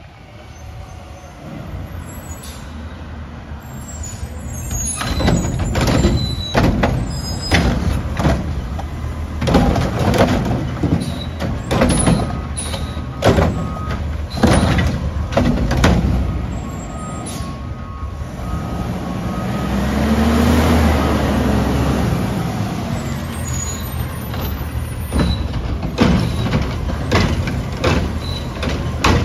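Front-loader garbage truck collecting recycling carts: the diesel engine rises as it pulls up, then its front arm lifts and tips the carts, making a string of bangs and clatters as carts hit the carry can and recycling falls in. A short run of evenly spaced beeps comes partway through, the engine revs up for a couple of seconds under hydraulic load near the middle, and more bangs follow near the end.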